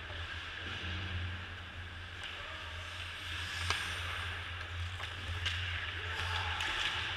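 Ice hockey rink during play, heard close up: a steady low hum and a hiss of skates on ice, with a few sharp knocks, the clearest about three and a half and five and a half seconds in.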